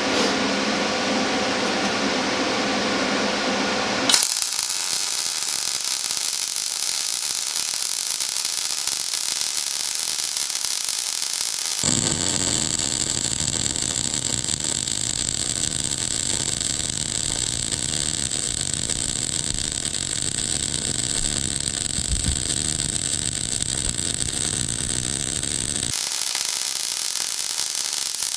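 MIG welder arc laying short beads on steel: a steady hiss. Its character changes abruptly about 4, 12 and 26 seconds in.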